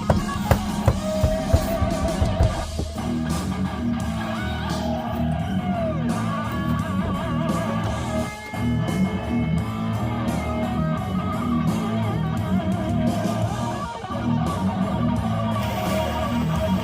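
Music with guitars and bass playing steadily.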